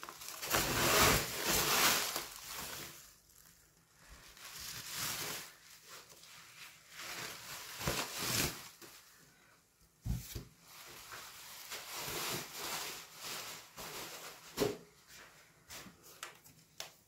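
Plastic bubble wrap rustling and crinkling in irregular bursts as a new laptop screen panel is unwrapped by hand, with a few sharper clicks.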